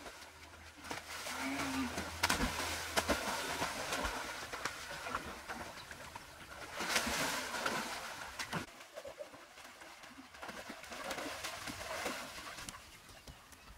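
Pool water sloshing and splashing as people swim and wade in it, coming in three swells about a second or two long.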